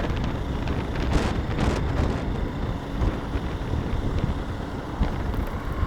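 Wind buffeting the microphone on a moving motorcycle, over steady engine and road noise from traffic, with brief louder swells between one and two seconds in.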